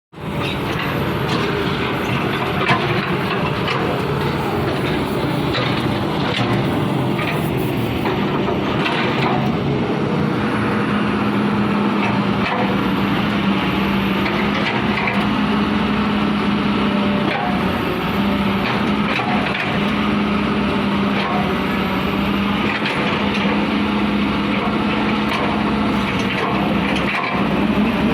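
Kobelco SK210LC hydraulic excavator running, a steady diesel engine drone with scattered knocks in the first several seconds. A steady low hum joins in about ten seconds in.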